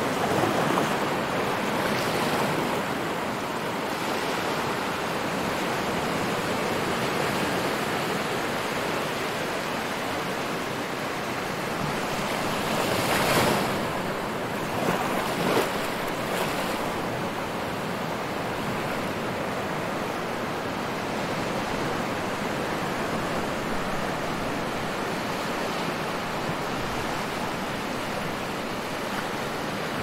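Ocean surf washing on a shore: a steady hiss of waves, with one louder wave breaking about halfway through.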